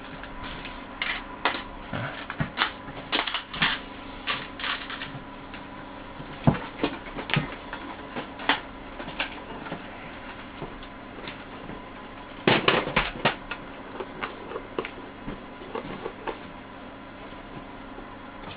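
Irregular clicks and light knocks of hand work at a workbench, over a steady electrical hum; a quick cluster of knocks comes about twelve and a half seconds in.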